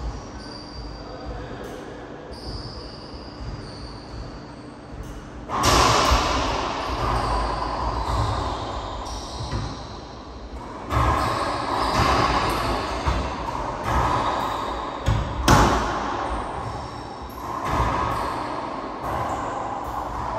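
Racquetball play in an enclosed court: sharp smacks of the ball off racquet and walls, echoing, the loudest about fifteen seconds in. Quieter for the first few seconds, then busier from about five seconds in.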